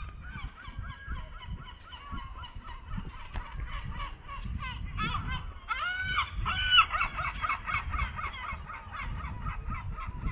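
A flock of birds calling, many short calls overlapping in a dense chorus that grows louder about five seconds in, over a low background rumble.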